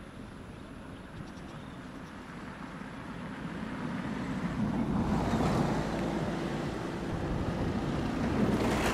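Boeing 777F freighter's twin GE90 turbofan jet engines rumbling as the airliner rolls along the runway after landing. The engine noise grows louder over the first five seconds or so, then holds steady.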